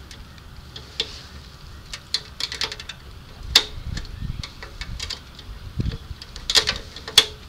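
Irregular clusters of sharp clicks from the gazebo load-testing rig as the upward pull on the sand-anchored leg is raised, the densest runs about two to three seconds in and again near the end, with brief low rumbles between them.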